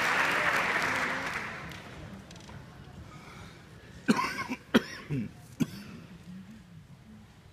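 Audience applause dying away over the first couple of seconds, then a quiet hall with about four short coughs from the audience a little past the middle.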